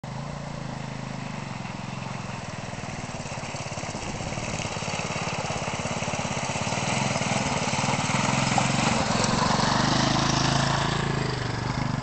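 Trail motorcycle engine running with a steady note as the bike rides through a shallow river, splashing through the water, growing louder until about nine seconds in and easing slightly near the end.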